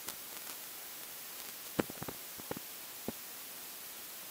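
Steady hiss of recording noise, with a few faint clicks about halfway through.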